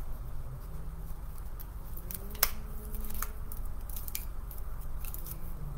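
Green plastic mesh ribbon crinkling and crackling in the hands as a ruffle is scrunched and a rubber band put around it, with a sharp click about two and a half seconds in.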